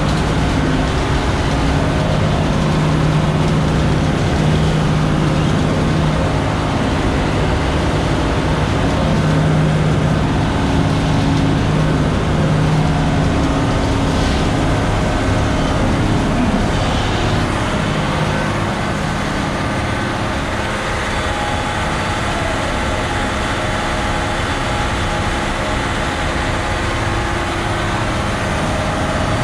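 Terex FD4000 front-discharge concrete mixer truck's diesel engine running steadily while its drum is loaded with concrete under a batch plant chute. About 17 seconds in, its steady hum drops a little and shifts in pitch.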